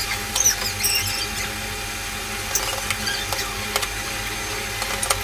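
Wires and switch fittings being handled on a switchboard: a few short high squeaks in the first second, then scattered light clicks, over a steady faint hum.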